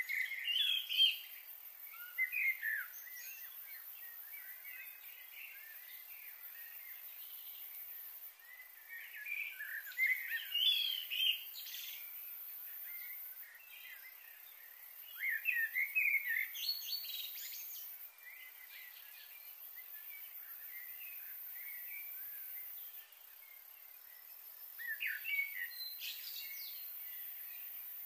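Songbirds chirping and singing in short clusters of quick notes every several seconds, over a steady faint high hiss.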